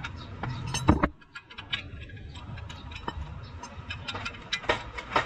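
Hand ratchet clicking in short runs, with metal tools clinking, as a suspension bolt is turned.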